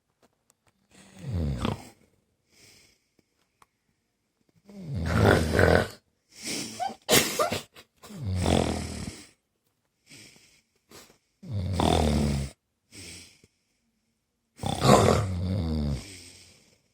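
A sleeping man snoring heavily. There are about five loud, rattling snores a few seconds apart, each lasting a second or so, with a couple of shorter snorts in between.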